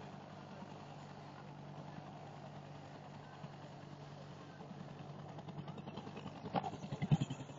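Army helicopter getting ready to lift off: a steady low engine hum, then a rhythmic rotor beat that builds from about halfway through and turns into loud, regular blade thumps near the end.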